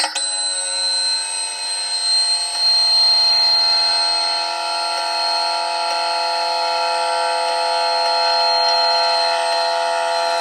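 Loud, steady electronic buzzing tone made of many pitches at once, like an alarm or buzzer, holding without a break.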